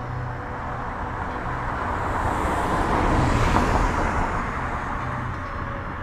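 A road vehicle passing by: its road noise swells to a peak about three and a half seconds in, then fades away.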